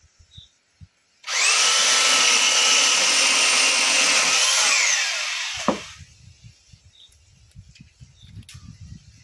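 Black & Decker PS7525 electric pole saw: the motor spins up about a second in and runs with a steady high whine for about three seconds as the chain cuts a dry branch. It then winds down with a falling whine and stops, leaving faint low knocks.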